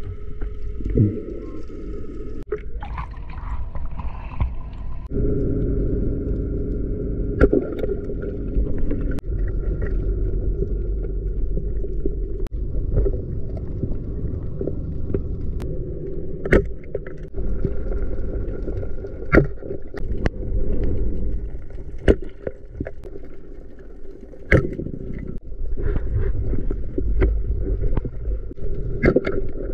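Underwater recording of a steady motor hum carried through the water, with sharp clicks and knocks scattered throughout. For a couple of seconds early on a different, higher-pitched sound takes its place.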